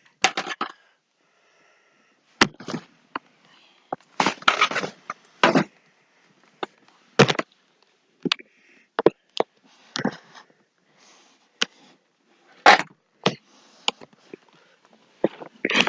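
Irregular knocks, clicks and short clatters of hard objects being handled and set down, with quiet gaps between them.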